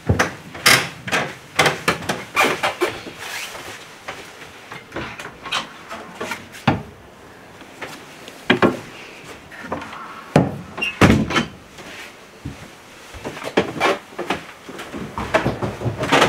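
Footsteps on wooden stairs and knocks from a small wooden cupboard door being opened, with rustling as something soft is pulled out; the knocks come irregularly, in clusters, through the whole stretch.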